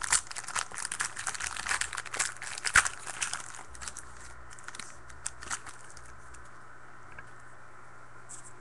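Trading-card pack wrapper crinkling and tearing as it is ripped open by hand. A dense crackle runs for about the first three and a half seconds, with one sharp crack near the middle of it, then a few light rustles before it settles into a faint steady background.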